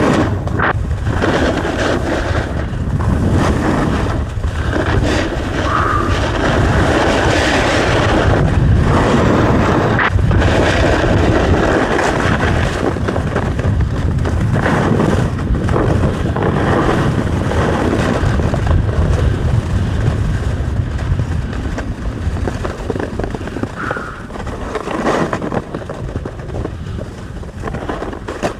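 Loud wind buffeting the microphone with a low rumble that rises and falls in strength.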